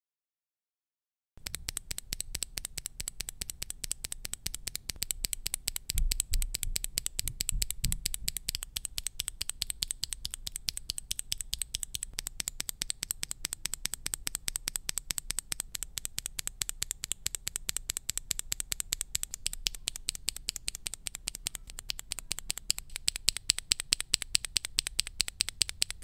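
Mechanical keyboard switches, each fitted with a keycap, pressed and released rapidly and over and over, giving a fast, steady run of sharp key clacks. A few deeper thuds come about six to eight seconds in.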